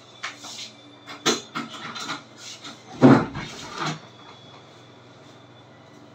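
Ballpoint pen scratching strokes on paper: a run of short scratches over the first four seconds, with a louder thump about three seconds in, then only a steady low hum.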